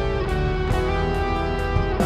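Background worship music: an instrumental passage led by guitar, with a steady beat.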